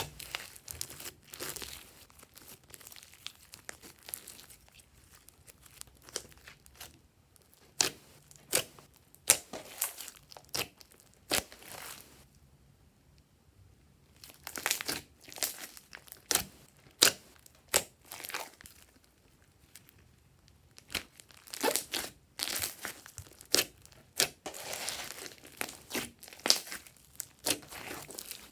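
Glossy slime being worked by hand, squeezed, stretched and folded, giving irregular sticky clicks and pops, with two short quieter pauses.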